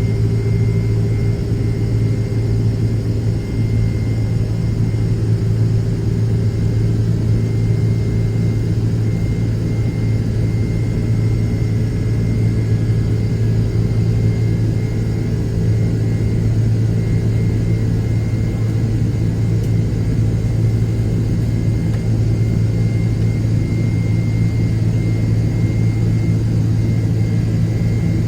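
Jet airliner cabin noise after takeoff: the engines and airflow make a steady low drone, with a faint high tone held above it.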